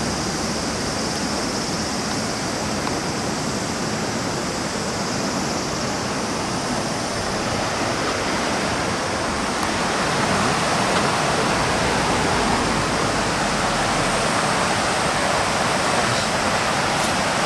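Steady rush of a river running fast over rocks, growing a little louder about ten seconds in.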